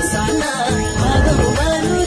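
Background music: a Bollywood-style song with singing over a steady beat.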